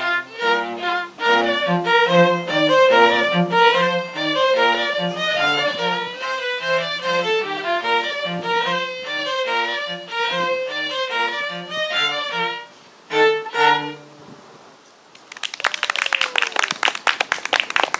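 A small string group of violins and cello playing a quick tune of short notes, ending with a final pair of notes about fourteen seconds in. After a brief pause, an audience starts clapping.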